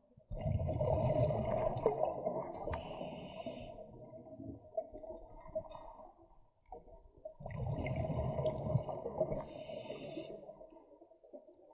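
Scuba diver breathing through an open-circuit regulator, heard underwater: two long bursts of exhaled bubbles rumbling and gurgling, about seven seconds apart, with the regulator's hiss.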